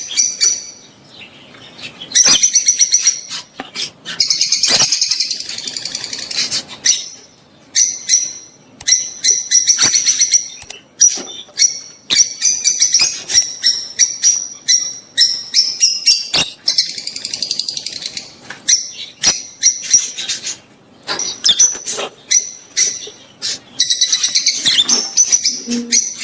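Rosy-faced and Fischer's lovebirds calling: shrill, rapid chirps and sharp screeches in bursts, with short pauses between them. These are the chattering calls used as breeding calls to bring pairs into mating.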